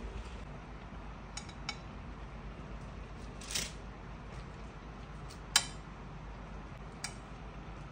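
Metal kitchen tongs clicking and tapping against a baking tray and a ceramic dish while roasted red peppers are moved: a few light clicks, a short scraping burst near the middle, and one sharp loud tap later on, with a last smaller click near the end.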